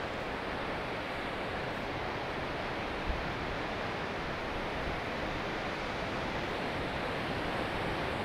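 Surf breaking along an ocean beach: a steady, even wash of waves.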